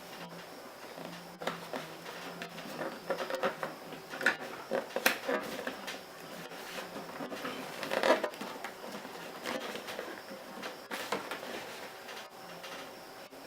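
Action-figure packaging being handled: scattered rustles, crinkles and clicks of cardboard and plastic. There is a sharp click about five seconds in and a louder rustling burst about eight seconds in.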